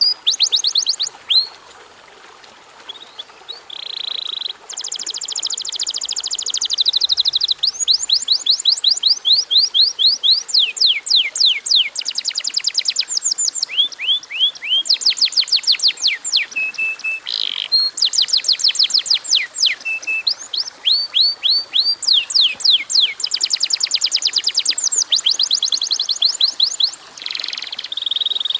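Domestic canary singing a long, fast song of rapidly repeated high sweeping notes and rolling trills. The song goes quieter for a couple of seconds near the start, then runs on almost without a break.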